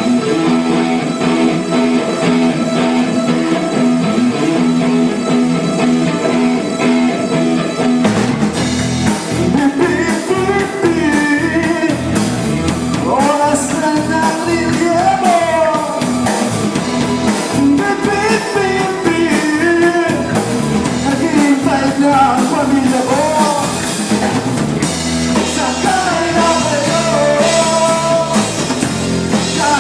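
Band playing a rock-style song. Chords are held for about eight seconds, then drums come in with a steady beat and a singer's voice joins over the guitar.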